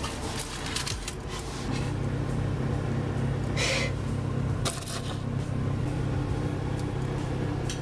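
A steady low hum that sets in a little under two seconds in and holds, with a short rustle about three and a half seconds in and a light click soon after.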